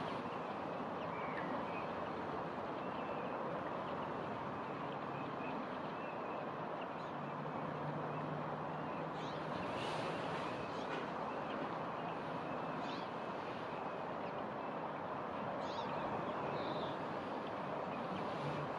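Steady outdoor background rush with a few faint, scattered bird calls.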